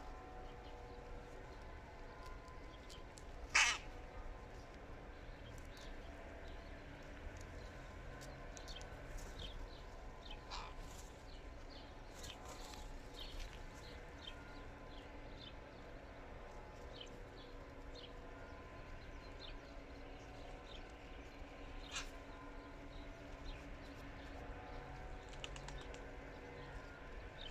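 Hooded crows cawing: one loud harsh caw about three and a half seconds in, then a few fainter calls spread through the rest, over a steady low background hum and scattered faint ticks.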